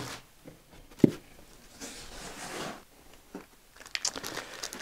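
Plastic packaging rustling as small parts are unwrapped by hand, with a single sharp knock about a second in and light clicks and rattling of small hardware near the end.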